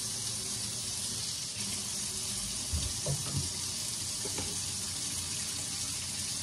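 Kitchen tap running steadily into a sink as plastic bowls are rinsed under it, with a few light knocks about three seconds in and once more a second later.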